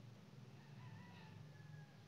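Near silence with a steady low hum, and a faint, long, slightly falling high-pitched call from about a third of the way in to near the end.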